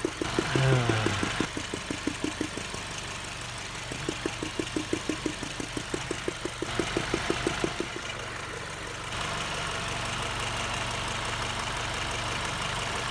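2005 Ford Focus engine idling with a fast, knock-like tapping, about five or six a second, that comes and goes and then stops about nine seconds in, leaving a steady idle. The tapping comes from a loose rubber cover on a sensor in the engine bay and stops once the cover is back in place.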